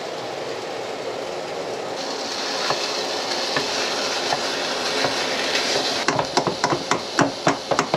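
Ground chorizo sizzling in a frying pan, the sizzle growing louder about two seconds in. In the last two seconds a spatula scrapes and chops at the meat in quick strokes.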